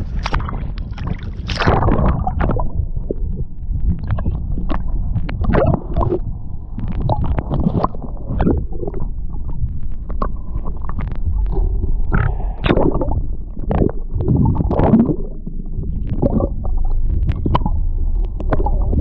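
Muffled underwater sound of sea water moving around a submerged camera: a low gurgling rumble broken by frequent clicks and knocks, with a brighter rush about a second and a half in.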